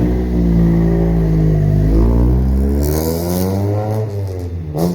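Roller brake tester driving the car's wheels during a brake test: a steady droning hum whose pitch glides up and then back down midway, with a brief knock near the end.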